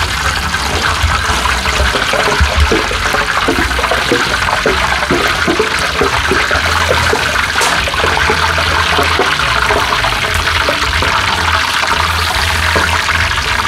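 Battered wild-greens fritters deep-frying in a wide pan of hot oil: a steady, loud sizzle with a dense scatter of small crackling pops as fresh pieces of batter go into the oil.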